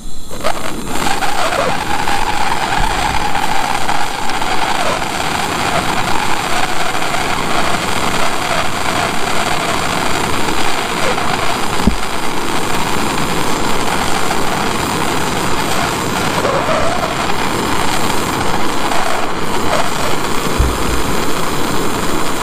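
Handheld turbo torch burning with a steady roar as its flame heats a copper pipe elbow up to soldering temperature, about 260 degrees.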